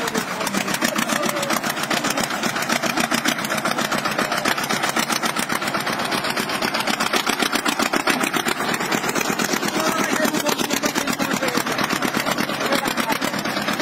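Small tractor engine running hard with a fast, even beat as the tractor climbs steep stone steps under a heavy load.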